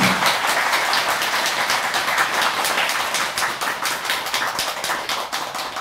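Audience applause: many hands clapping at once, easing off near the end.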